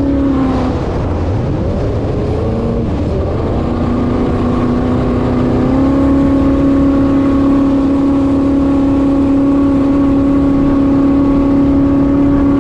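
Jet boat engine running at speed. Its note drops about half a second in, runs lower for a few seconds, then climbs back about six seconds in and holds steady.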